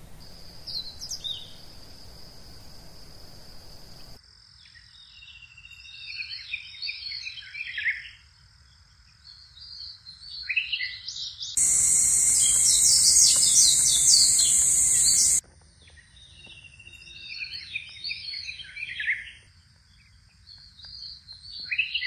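Wild birds singing repeated falling, warbled phrases, in short takes that start and stop abruptly. About halfway through, a louder high-pitched hiss mixed with fast chirps takes over for about four seconds, then stops suddenly.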